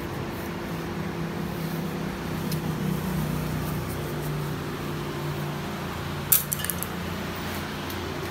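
A steady low mechanical hum, with a quick run of light metallic clinks about six seconds in.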